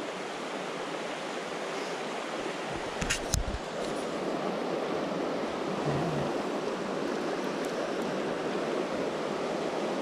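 Shallow creek riffle running steadily over stones, heard close to the water. A couple of sharp knocks about three seconds in.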